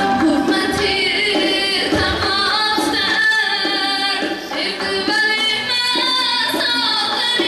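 Music with a singing voice, likely a woman's, carrying a melody with quick wavering turns over instrumental accompaniment.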